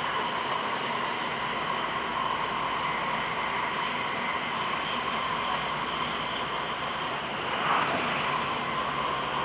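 Electric train running along the track, heard from inside the carriage: a steady rolling noise with a held whine, and a brief louder swell about eight seconds in.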